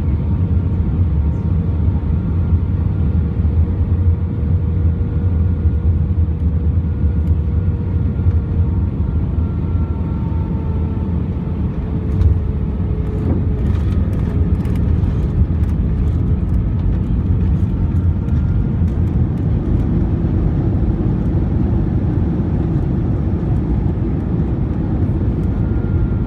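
Cabin noise of an Airbus A320 with IAE V2500 engines landing, heard from a window seat over the wing: a steady rumble of engines and airflow, with the engine tones dropping in pitch shortly before touchdown. About halfway through comes a single thud as the main wheels touch down, followed by runway rumble and cabin rattling as the jet rolls out and slows with its spoilers raised.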